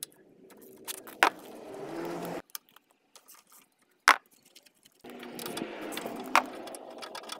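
Hand ratchet with a 10 mm socket on an extension bar clicking as it undoes nuts from tall battery-module studs, plus metal clinks of socket and nuts. Two spells of rapid clicking with a short quiet gap between them, and three sharper clicks.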